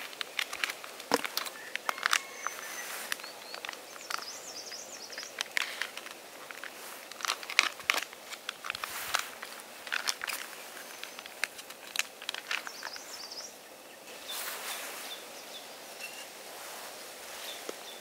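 Close rustling, with scattered light clicks and taps of camp cooking gear being handled, and a few faint bird chirps in the background.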